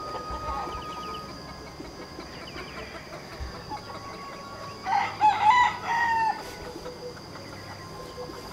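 A rooster crowing once, a single crow of about a second and a half near the middle. A steady high-pitched drone and faint short chirps run underneath.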